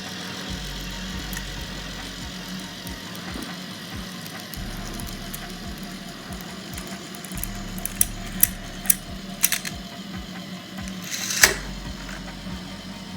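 K'nex roller coaster model running a test: the motorised lift chain whirs steadily. From about 8 seconds in, the plastic car and track make a series of sharp clicks and clacks, and the loudest comes near the end.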